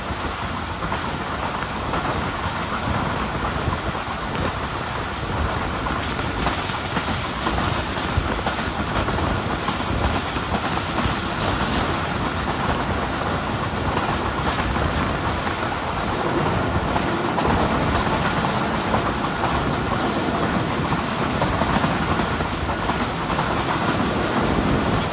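Moving passenger train heard from a coach window: the steady running noise of wheels on the rails, growing a little louder about two-thirds of the way through.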